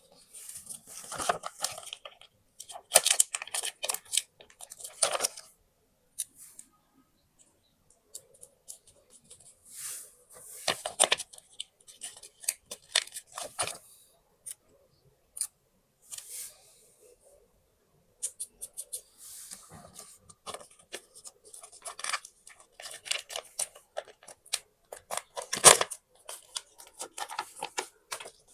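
Paper being handled for a scrapbook: crisp rustling and crackling with tearing and cutting, in short irregular bursts separated by brief pauses.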